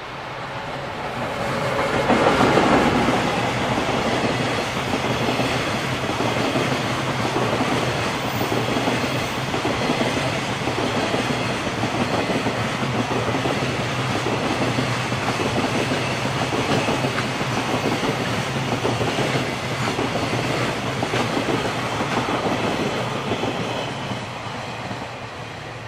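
Electric freight train of container wagons passing close by, its wheels clattering over the rail joints. The sound swells in about two seconds in and dies away near the end as the last wagons go by.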